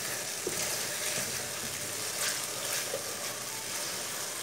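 Chopped tomatoes and green chillies sizzling in hot oil in an aluminium kadhai as they cook down, stirred with a wooden spoon, with a few faint clicks of the spoon against the pan.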